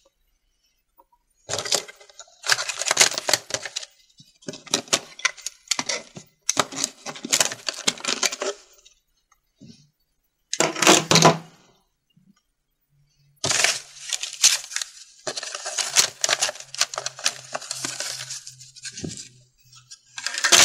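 Small hard objects, such as wooden craft sticks and tools, clattering and rattling as they are handled in a box, in several stretches of dense clicks with short pauses between them.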